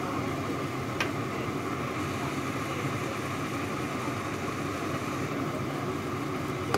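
Steady mechanical hum with a hiss over it, and one short click about a second in.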